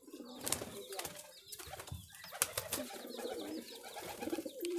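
A flock of domestic pigeons (Madrasi and Giribaj breeds) cooing, with wing flaps in among the calls.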